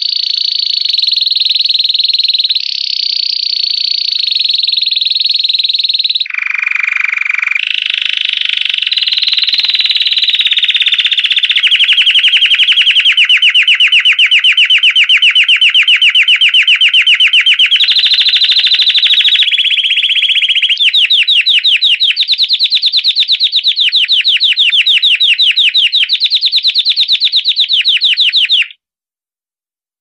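Belgian canary singing 'campainha' (bell) song: long, fast rolling trills of rapidly repeated high notes, switching to a new phrase every few seconds. The song stops abruptly near the end.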